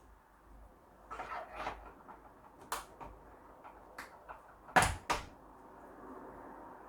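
Acorn RISC PC case parts knocking and clicking as they are handled and the case slice's legs are twisted to lock into place: a soft cluster of knocks, then a few sharp clicks, the loudest about five seconds in.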